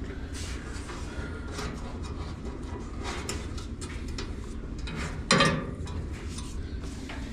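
Small clicks and knocks of parts being handled and fitted back into an appliance, with one louder knock about five seconds in, over a low steady hum.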